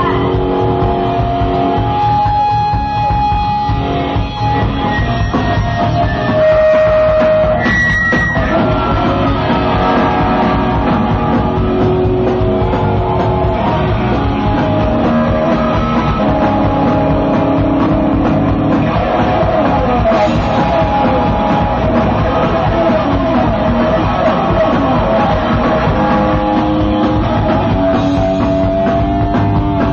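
Live rock band playing loud: electric guitars over drums, with a lead guitar line of held notes and bends that slide in pitch.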